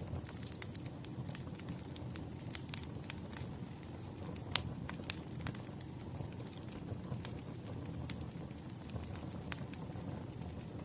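Wood logs burning, crackling with irregular sharp pops over a low steady rumble. The loudest pop comes about four and a half seconds in.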